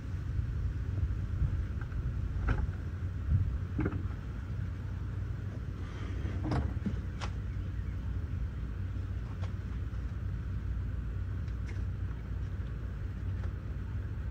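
Steady low rumble with a few sharp clicks and knocks, the clearest about two and a half and four seconds in and a pair between six and seven seconds in.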